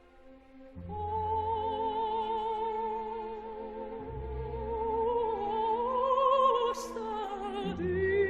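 Opera music: a singer holds long notes with wide vibrato over orchestral accompaniment. The voice enters about a second in, climbs in pitch past the middle and moves to a new note near the end.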